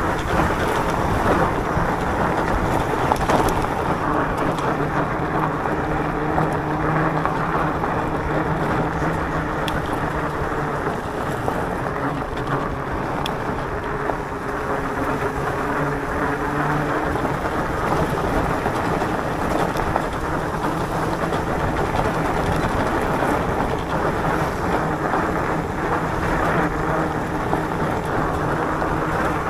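Electric mountain bike ridden along a gravel road: steady rumble of tyres on gravel and wind on the microphone, with a faint hum from the bike's motor that comes and goes.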